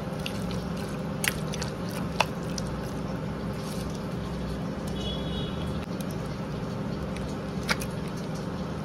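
A steel spoon stirring sliced onions and thick curd for onion raita in a steel bowl: soft wet squelching with a few light clicks of the spoon against the bowl, over a steady low hum.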